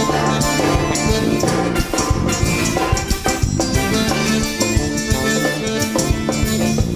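Upbeat Brazilian forró band music with drums keeping a steady, busy beat under held instrumental notes.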